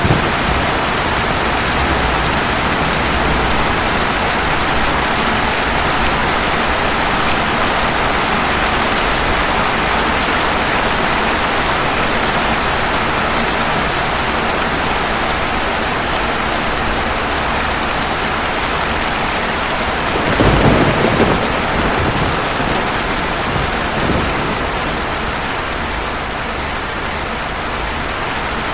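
Steady heavy rain falling, with a brief clap of thunder about two-thirds of the way through, followed by a couple of fainter rumbles.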